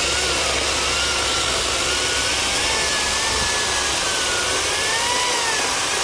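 Ryobi 40V HP 18-inch brushless cordless electric chainsaw cutting through a large log, running steadily under load, with a high motor and chain whine that wavers slightly in pitch as the chain bites into the wood.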